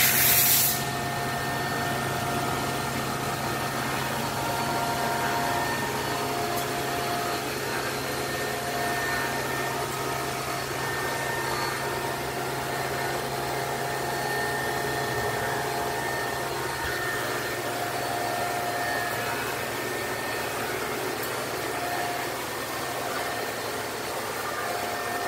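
Okamoto 820A hydraulic surface grinder running, its electric motors and hydraulic unit giving a steady, even hum. A brief loud noise comes right at the start.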